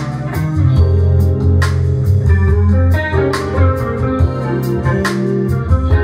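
Smooth jazz played through Børresen Acoustics X6 tower loudspeakers and picked up in the room by a camera microphone: a steady bass line and sustained melody notes, punctuated by sharp percussion hits.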